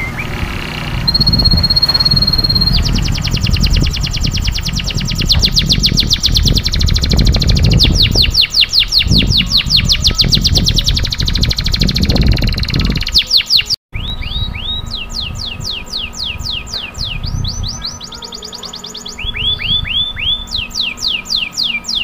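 Domestic canary singing a long song of fast rolling trills made of rapidly repeated falling notes, with a held high whistle near the start. The song breaks off for an instant about two-thirds of the way through, over a low background rumble.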